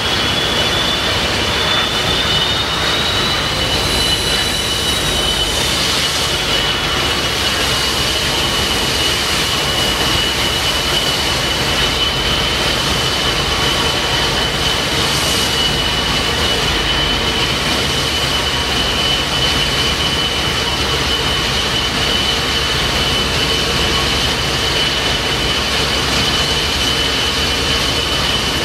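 Gas turbines of a TriCat 45M high-speed catamaran ferry running at low power while manoeuvring: a steady rushing noise under a high, steady turbine whine, with a second whine that climbs in pitch over the first few seconds and then drops away.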